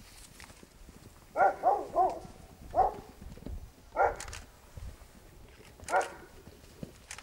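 A dog barking in short, sharp barks: three in quick succession about a second and a half in, then single barks spaced a second or two apart.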